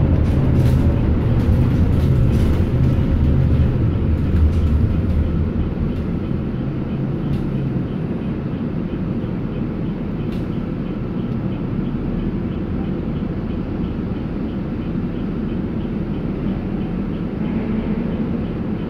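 Interior of a moving bus: low engine and road rumble that dies down over the first five or six seconds as the bus slows to a stop in traffic, leaving a quieter steady hum of the idling bus.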